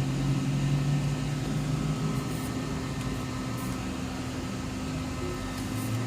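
A steady low mechanical hum with an even hiss, like a small fan or motor running; its lowest tone fades somewhat about halfway through, and there are a few faint light ticks.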